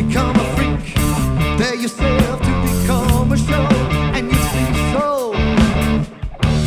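Live rock band playing an instrumental passage of psychedelic stoner-funk: steady drums and bass under a lead line that bends and slides in pitch, with a long falling glide about five seconds in.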